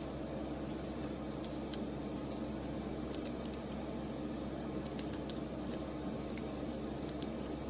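Light, scattered metallic clicks and ticks of small parts and tools being handled during the valve replacement, over a steady low hum.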